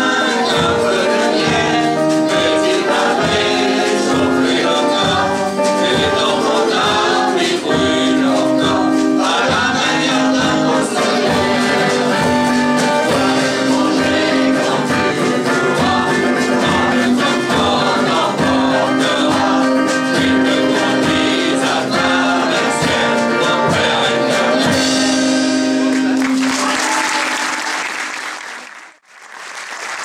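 A group of amateur singers singing a song together with acoustic guitar and drum accompaniment, on a steady beat. About four seconds before the end the song stops and audience applause breaks out, cutting out briefly near the very end.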